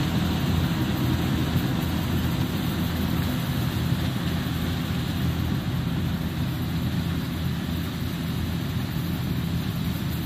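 Kubota DC60 combine harvester's diesel engine running steadily under load with its threshing machinery going, gradually getting a little quieter.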